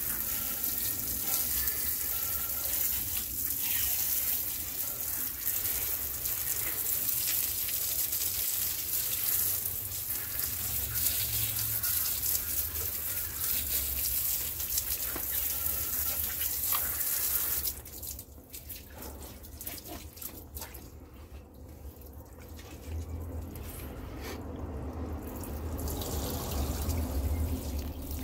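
Water from a hose spraying onto a bicycle's rear cassette and wheel, rinsing off degreaser: a steady hiss of spray and splashing. It drops off sharply about two thirds of the way through, leaving quieter water sounds that build up again near the end.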